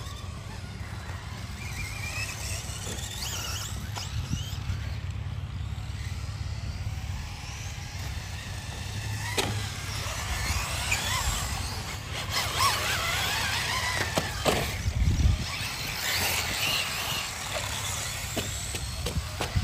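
Brushless electric RC cars running on a track, their motors whining up and down in pitch as they speed up and slow, busiest in the second half, with a few sharp knocks and a steady low rumble underneath.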